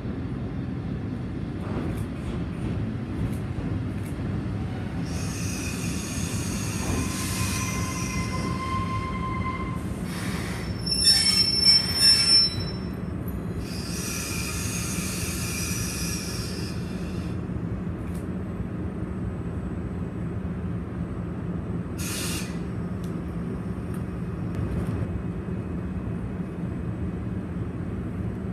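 EF65 electric locomotive hauling a freight train slowly into the platform. High-pitched brake and wheel squeal runs from about 5 to 17 seconds in, loudest around 11 to 12 seconds, as the train slows to a stop. A steady low hum sits underneath throughout, with one more brief squeal about 22 seconds in.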